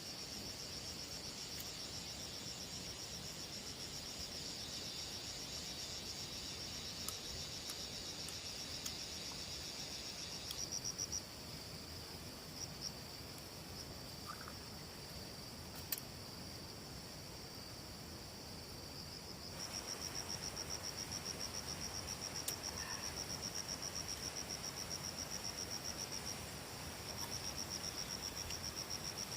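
Insects chirring with a high-pitched, rapidly pulsing trill. The trill breaks off about a third of the way in and starts up again about two-thirds in, and a few faint clicks fall in the gap.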